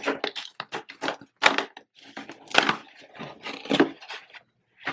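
Fingers working at a small cardboard iPhone box to get it open: a run of clicks, taps and scrapes, with sharper cracks about one and a half, two and a half and nearly four seconds in.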